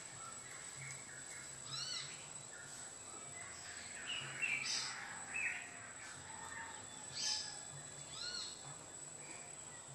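Birds calling in tropical forest: scattered short chirps and repeated arched, down-slurred calls, with a steady thin high tone in the background.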